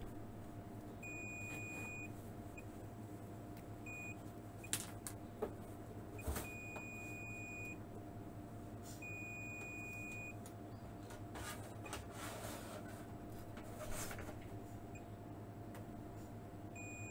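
Fluke digital multimeter beeping in its continuity/diode test as test probes touch points on a car amplifier's circuit board: several high beeps, some short blips and some lasting about a second. Faint taps of the probe tips and a steady low hum run underneath.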